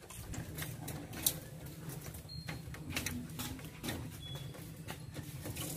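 Scattered light clicks and taps of a licence plate being handled and pressed against a car's rear plate mount, the sharpest a little over a second in, over a steady low hum.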